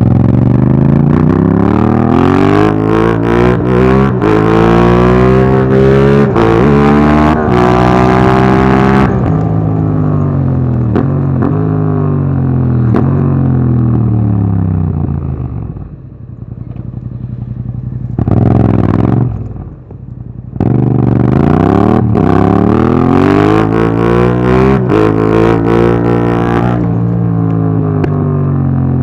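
Yamaha MT-07's parallel-twin engine through an Akrapovic Racing Line exhaust with dB killer, pulling hard with its pitch climbing, then dropping for several seconds as the bike slows on the throttle. A brief rev and a dip follow about two-thirds of the way through, then another climbing pull that falls away again near the end.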